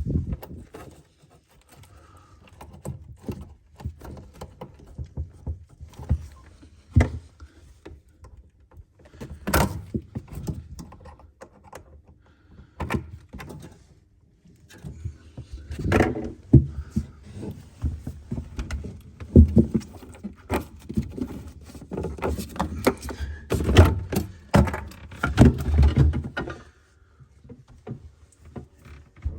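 Irregular knocks, thunks and clatter of parts and tools being handled inside a refrigerator while an evaporator is fitted, with the loudest knocks in the second half.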